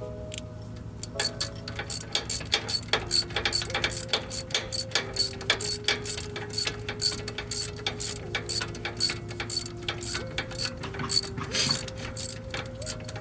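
Hand ratchet clicking in quick runs of strokes as it backs out the wheel hub assembly's mounting bolts.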